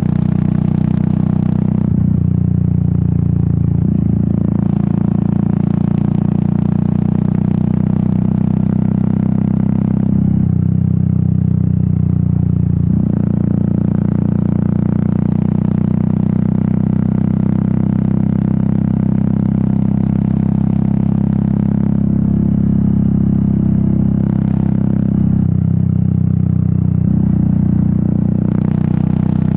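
Royal Enfield Meteor 350's single-cylinder engine and exhaust running under way, a loud, steady thumping note that shifts in pitch several times as the throttle and gears change.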